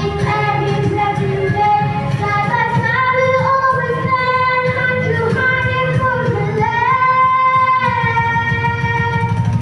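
Children singing a song with instrumental accompaniment, holding some long notes.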